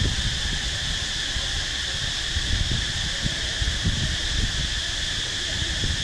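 Steady, unbroken high-pitched insect chorus over a low, uneven outdoor rumble.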